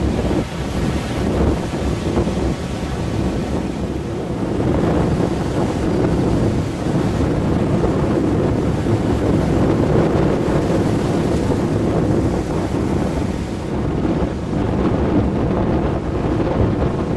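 Steady wind buffeting the microphone, with the wash of Baltic Sea surf underneath.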